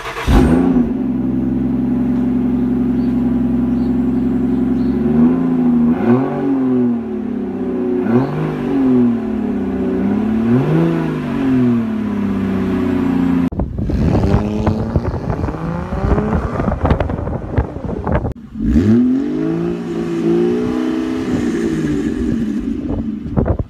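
Ford Fusion Sport's 3.5-litre Cyclone V6 through a Borla cat-back exhaust: it catches and flares just as it starts, then settles to a steady idle. About five seconds in it is revved in a run of quick blips that rise and fall. Partway through the sound changes abruptly, and near the end the engine is blipped twice more.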